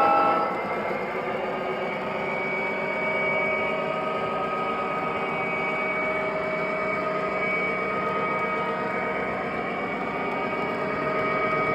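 MTH model diesel locomotive sounding through its small onboard speaker: a horn blast cuts off about half a second in, then a steady diesel engine running sound with a thin held whine.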